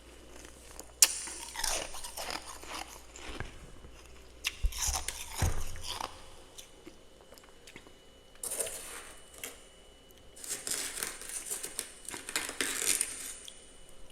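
Freezer frost being bitten and chewed, crunching in several bursts with short pauses between, and a sharp snap about a second in.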